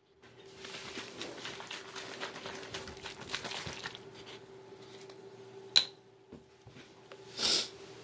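Handling noise of a phone and a plastic drink bottle: uneven rustling, then a sharp click a little before six seconds in and a short hissing burst near the end, over a faint steady hum.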